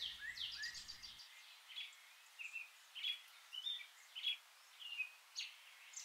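Songbirds chirping faintly: a dozen or so short, high chirps, some sliding downward, scattered irregularly over quiet outdoor hiss.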